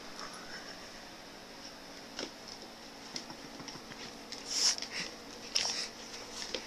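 Dog licking out an empty plastic peanut butter jar and nosing it across a carpet: scattered clicks of the plastic jar, louder clusters of knocking, scraping and licking from about four and a half seconds in.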